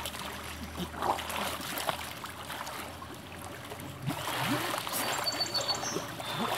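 Swimming-pool water sloshing and splashing as two people wrestle in it, the splashing growing heavier about four seconds in.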